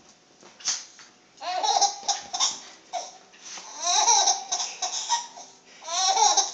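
Infant laughing in repeated high-pitched bursts, beginning about a second and a half in, with short pauses between runs of laughter.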